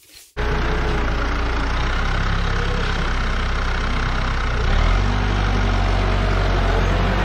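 New Holland T2420 compact tractor's diesel engine running steadily as it drives. About five seconds in, its low hum grows stronger and briefly louder.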